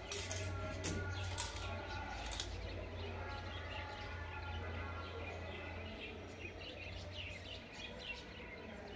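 Background ambience: a low steady hum with faint bird chirping, and a few soft clicks in the first couple of seconds.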